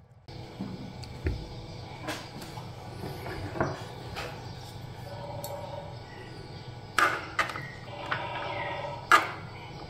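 Metal fork and spoon clicking and scraping against a plastic tray and lifting fried noodles, a handful of sharp clicks, the loudest about seven and nine seconds in, over a steady low hum.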